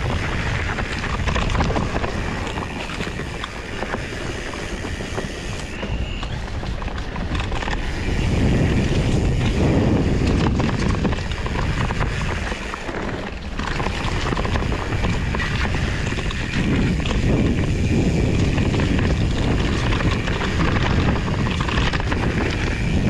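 Steady rush of wind on the microphone of a camera riding on a Trek Farley 7 fat-tyre mountain bike. It grows louder from about eight seconds in.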